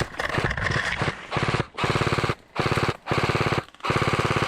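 Rapid automatic gunfire in several short bursts, each a quick even string of shots broken by brief pauses.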